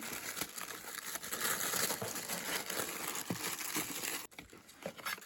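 Packaging being crinkled and rustled by hand, a dense crackle that stops sharply about four seconds in, followed by a few light handling taps.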